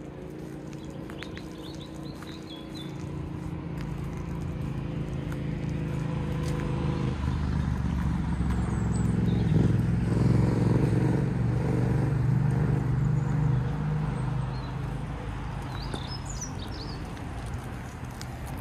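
A motor vehicle's engine running as it slowly approaches and passes, loudest in the middle and fading toward the end, with a shift in engine note about seven seconds in. Birds chirp briefly near the start and again near the end.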